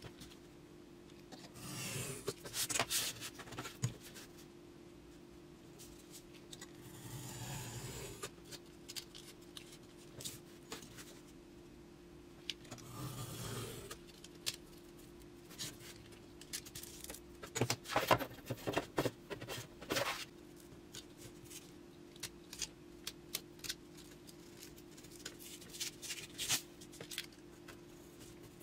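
A utility knife scoring paper-faced foamboard along a steel ruler, in two long drawn strokes, among sharp clicks and scrapes as the metal ruler and the board are handled on the cutting mat.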